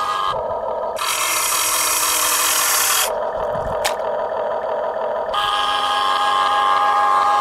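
Electric gear motors of a Huina RC excavator whining as the boom and bucket move, with a louder, harsher grinding buzz for about two seconds starting a second in, and a single click near the middle.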